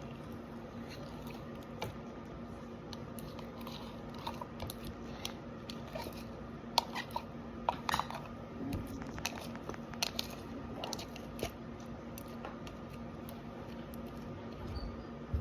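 Sticky, under-activated slime being pulled and stretched by hand out of its container: a run of small wet clicks, pops and crackles, busier in the first twelve seconds.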